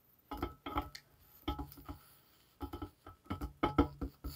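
Light metallic clinks and knocks with a short ring, in four quick clusters. A small camp kettle and its wire bail handle are being handled and set down over a cat-can alcohol stove.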